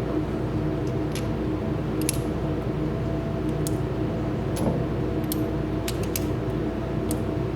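Scattered sharp metallic clicks of a Colt .45 single-action revolver being loaded: the cylinder turned by hand, clicking round chamber by chamber, and cartridges slid into the chambers. Under them runs a steady low hum.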